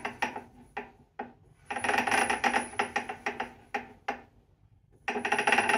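Tesla electric motor cogging on the bench: a harsh, juddering buzz-rattle that comes in three bursts with short pauses between. It is the sign of a mismatch between what the inverter sends out and what the motor does, which turned out to be a phase wire between motor and inverter connected the wrong way round.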